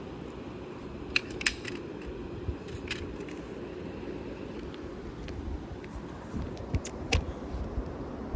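Toy cars being handled: a handful of sharp, light clicks and knocks scattered through, over steady room noise.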